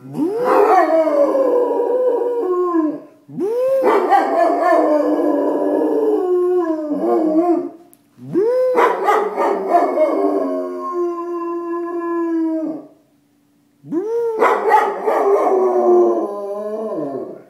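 A dog howling: four long howls with short breaks between them. Each howl opens with a quick rise and fall in pitch, then holds a drawn-out, slowly falling tone.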